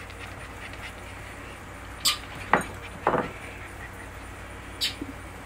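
Puppies moving about empty ceramic food bowls on a wooden deck, making a few short, sharp sounds: a high one about two seconds in, two lower ones around two and a half and three seconds, and another high one near the end.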